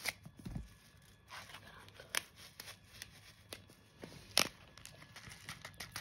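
A packet of dried bird food mix being opened and handled: crinkling and rustling with scattered sharp clicks, the loudest a little over two seconds and about four seconds in.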